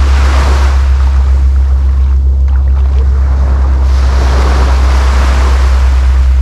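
A steady low rumble under a loud rushing of wind and water that swells and eases over a few seconds.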